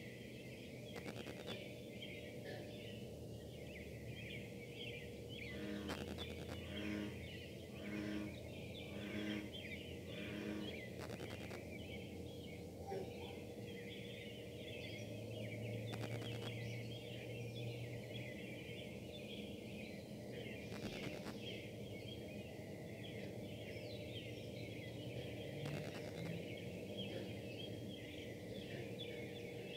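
Distant industrial plant running with a steady buzzing hum and higher tones above it, broken by short crackles of electronic interference. A run of evenly spaced pulses comes in about a third of the way through and stops about a third of the way later.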